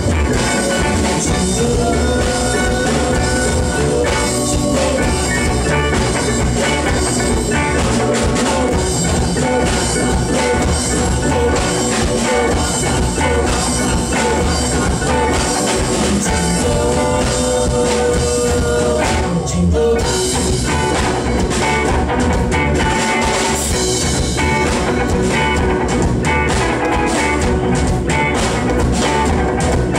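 Loud, continuous band music with guitar and drum kit, and what may be a voice holding notes.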